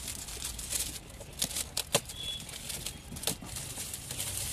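Shiny foil gift wrapping crinkling and rustling as it is pulled off a box by hand, with a few sharp crackles in the middle.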